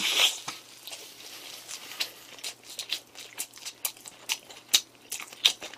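A person biting into and chewing a fried ham-and-egg croquette close to the microphone: a bite at the start, then a run of irregular sharp mouth clicks and smacks.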